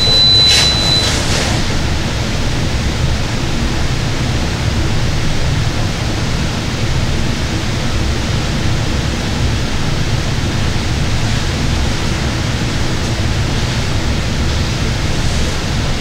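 Steady rushing of a small waterfall pouring into a rock pool, an even noise with no change. A short high beep sounds right at the start.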